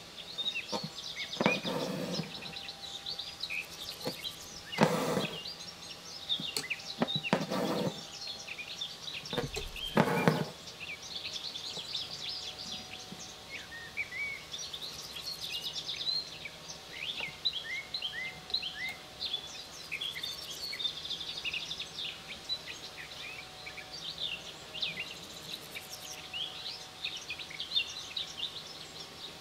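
Small birds chirping in the background, many short chirps throughout. In the first ten seconds come several short rasping swishes of embroidery thread being pulled through linen stretched in a hoop.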